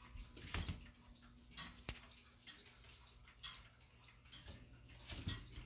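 Grandfather clock's Urgos pendulum movement ticking, about one tick a second.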